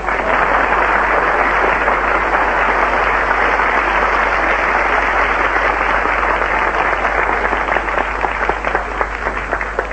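Studio audience applauding, the dense clapping thinning out into more scattered claps near the end.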